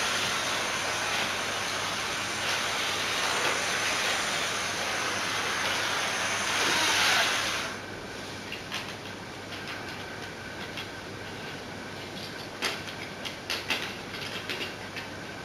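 Model train set running on its track with a steady hissing whirr that cuts off abruptly about eight seconds in, followed by scattered clicks and taps of the track and train being handled.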